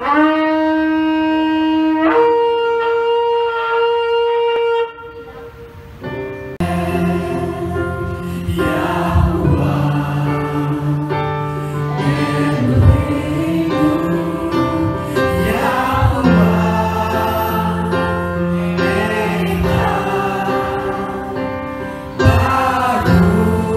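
A curved shofar sounded in one long blast of about five seconds that jumps up to a higher note about two seconds in. After a short lull, a worship song with a band and singing begins about six and a half seconds in.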